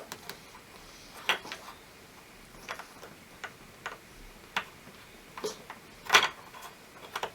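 Small plastic pieces of a Kinder Surprise toy figure clicking and tapping as they are handled and pushed together: a handful of scattered clicks, with a louder knock about six seconds in.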